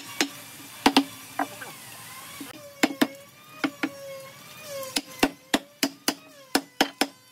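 Wooden mallet knocking on a wooden table-leg frame, driving its glued joints home: a series of sharp wooden knocks, irregular at first and coming faster and more evenly in the last couple of seconds.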